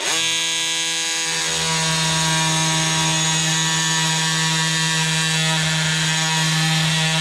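Oscillating multi-tool switching on suddenly and running steadily with a high buzz, its saw blade cutting into a wood dowel.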